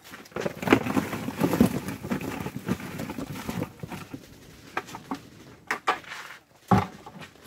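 Cucumbers tumbling out of a plastic bucket into a cardboard box: a dense clatter of knocks for about three seconds, then a few scattered knocks.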